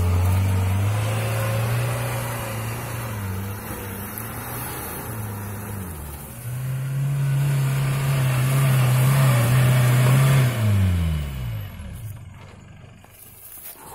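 Off-road SUV engine revving hard and holding high revs. It eases off about six seconds in, revs up again, then drops back and fades near the end.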